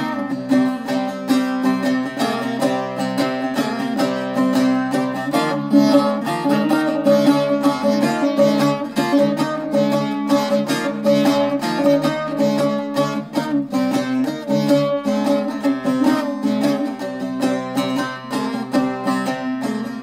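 Bağlama (long-necked Turkish saz) played solo with fast, steady strumming: the instrumental interlude of a sung deyiş.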